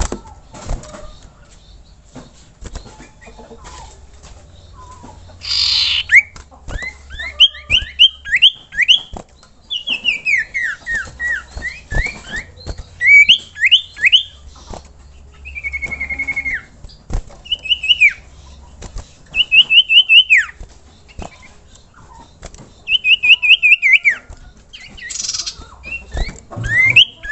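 Common iora (sirtu, cipoh) singing: phrases of quick whistled notes that slide up and down, repeated with short pauses between them. A brief noisy rustle sounds about a fifth of the way in and again near the end.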